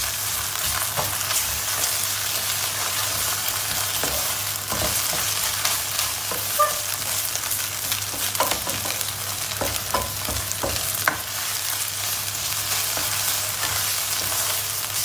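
Onions and tomato paste sizzling in hot oil in a frying pan while a wooden spoon stirs and scrapes through them, with scattered small knocks of the spoon against the pan.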